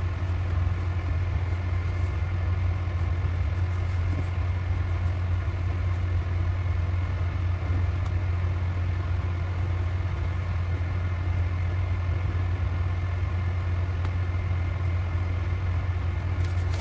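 Steady low mechanical hum of a running motor, unchanging throughout, with faint steady tones above it.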